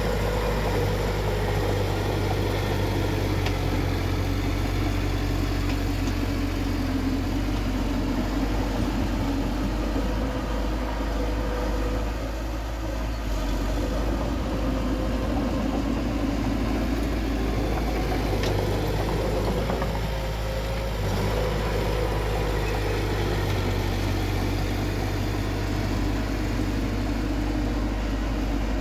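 Heavy earthmoving machinery's diesel engine running steadily, with a brief drop in loudness about 12 seconds in.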